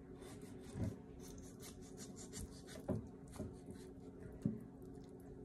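Kitchen knife scraping and cutting at a raw chicken on a wooden cutting board while it is deboned: a run of short, faint scraping strokes with about four soft knocks.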